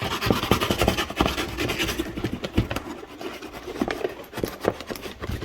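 A knife sawing and scraping at tough packing tape on a cardboard shipping box: a quick, irregular run of scratches and small knocks.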